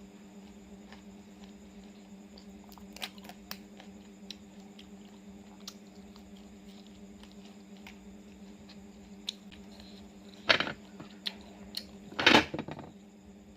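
Mouth sounds of someone eating raw oysters: scattered soft clicks, then two louder wet bursts about ten and twelve seconds in. A steady low hum runs underneath.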